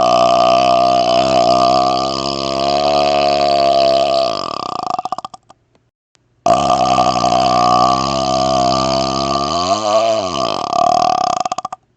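Two long, loud burps from a man, each held for several seconds on a steady low pitch. The first is already going and falls in pitch as it breaks into a rattling stutter and stops about five seconds in; the second starts after a short pause, dips in pitch and rises again near the end, then stutters out.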